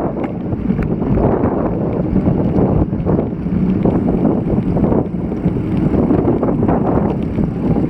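Strong typhoon wind buffeting an action camera's microphone: a dense low rumble that swells and dips with the gusts.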